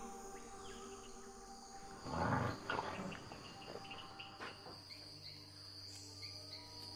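A dog growling briefly about two seconds in during rough play with another dog, over a jungle background of small insect and bird chirps.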